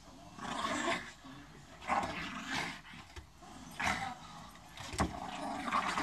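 Dogs growling in short bursts, about once a second, as they tug at a cloth in play. There is a sharp knock about five seconds in.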